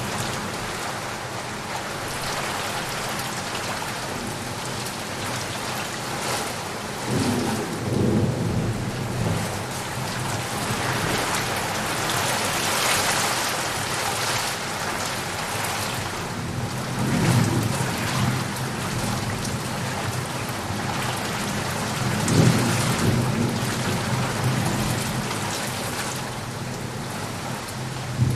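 Heavy rain falling steadily, with thunder rumbling low three times: about a quarter of the way in, past the middle, and again about three quarters of the way through.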